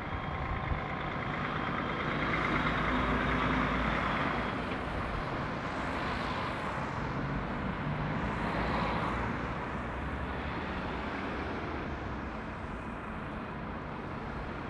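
Lorries and vans driving round a roundabout: diesel engines running and tyre noise on the road, swelling twice as vehicles pass close by, about two seconds in and again around seven to nine seconds.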